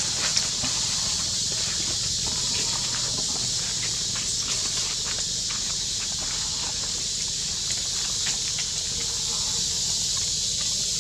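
A steady high hiss, with scattered light rustles and twig clicks of macaques moving through the leaves and branches.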